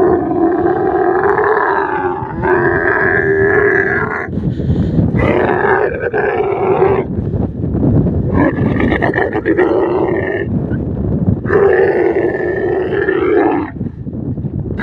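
Dromedary camels mating, the bull mounted on a couched female: loud, harsh bellowing in four long bouts, the first about four seconds, the others about two, with short pauses between.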